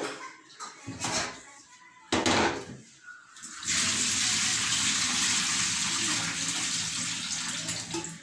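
Water splashing and sloshing in a basin as omena (small dried fish) are rinsed, then a steady pour of water from about four seconds in.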